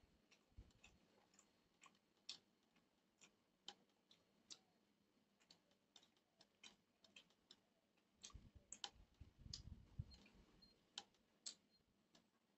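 Faint, irregular clicks and soft squishes of fingers mixing rice on a steel plate while eating by hand, with a few duller, lower knocks about two-thirds of the way through.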